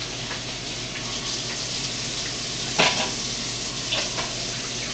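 A baby sucking and smacking food off her fingers: a few short wet smacks, the loudest about three seconds in and two more about a second later, over a steady background hiss.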